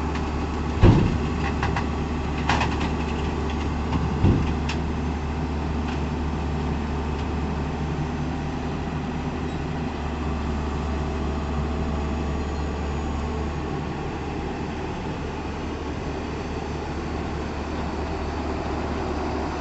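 Tata Hitachi excavator's diesel engine running steadily, with three sharp knocks in the first five seconds.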